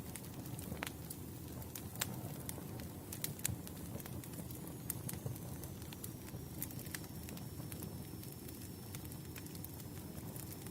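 Campfire burning: a steady low rumble of flames with frequent, irregular sharp crackles and pops.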